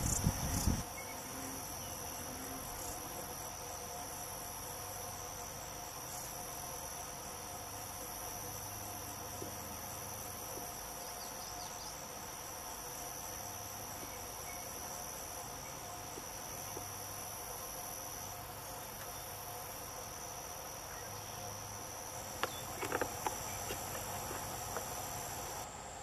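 Steady, high-pitched chorus of insects, several trilling bands running on unbroken. A brief low rumble in the first second, and a few soft clicks a few seconds before the end.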